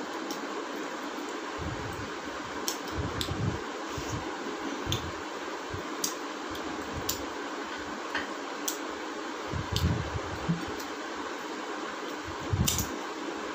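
Steady fan noise, with scattered small clicks and a few soft knocks from eating by hand: finger-licking, lip smacks, fingers on china plates and sips from plastic soda bottles.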